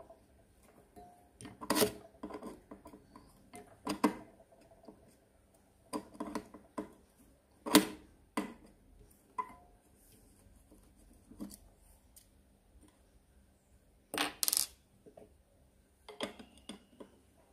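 Scattered metal clicks and clinks of a small tool against the steel needle plate and screws of an industrial single-needle sewing machine, the sharpest about eight seconds in and a quick pair near fourteen seconds.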